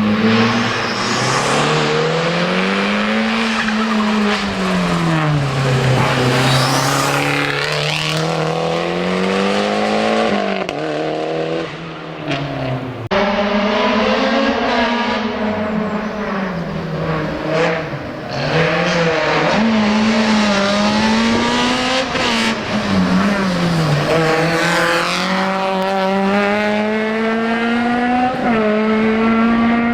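Race car engine revved hard and repeatedly through a slalom course, pitch climbing under acceleration and dropping at each gear change or lift for the chicanes. The sound breaks off and resumes abruptly about halfway through.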